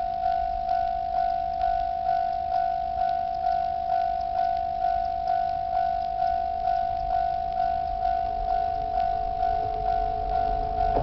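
Japanese railway level-crossing alarm ringing, a steady two-tone ding struck about twice a second, warning that a train is coming. Near the end the approaching train begins to be faintly heard under the bell.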